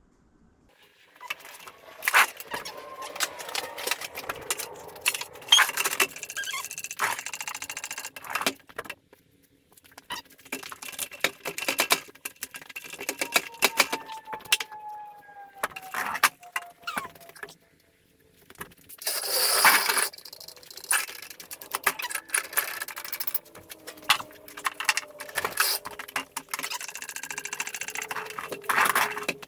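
Metal parts being handled: irregular clinks, knocks and scrapes, with a long scraping rasp about twenty seconds in and a thin squeak in the middle.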